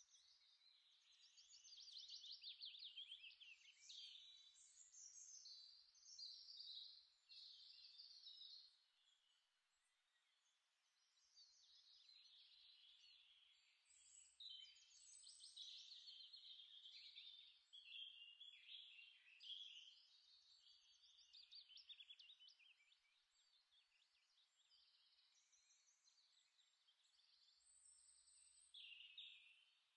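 Faint, high-pitched bird chirping and twittering, many quick trills overlapping in bursts that come and go, dying down briefly about a third of the way in.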